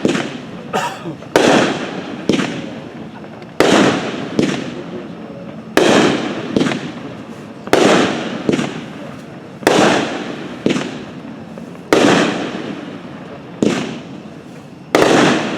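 A 200-gram, 10-shot consumer firework cake (Red Rhino 'Monkey Business') firing its shots one after another. There is a sharp bang about every two seconds, each followed about a second later by a smaller pop and a fading rumble.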